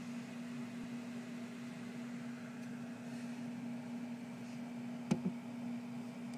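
A steady low hum over a faint hiss, with two quick light taps close together about five seconds in.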